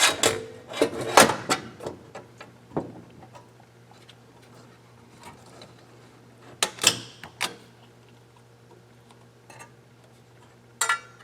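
Clicks and knocks of an electronic I/O unit's housing being handled and opened by hand, strongest in the first few seconds, with a few more knocks later. A steady low hum runs underneath.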